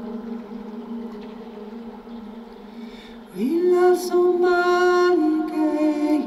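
Slow chant-like singing in long held notes: a fading held note, then about three seconds in a glide up into a louder sustained note that steps down twice towards the end.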